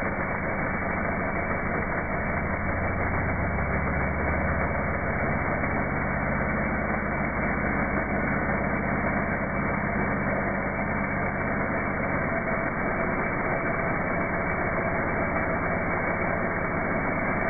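Two-stroke chainsaw cutting into a tree root in soil, played back in slow motion, so the engine and chain come through as a deep, steady drone.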